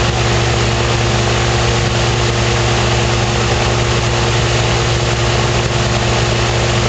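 Powered parachute engine and propeller running steadily at 3500 rpm, the pitch holding constant. The engine is running smoother on a new setting, its cylinders' exhaust gas temperatures now nearly equal.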